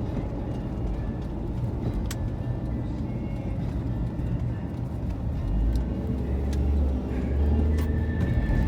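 Steady road and engine noise inside a moving car's cabin, a low rumble that grows louder about five and a half seconds in.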